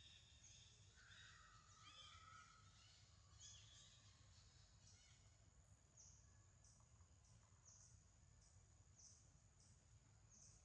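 Near silence: faint outdoor ambience with small high-pitched chirping calls, a few in the first seconds and then short chirps about once a second in the second half, over a faint steady high buzz.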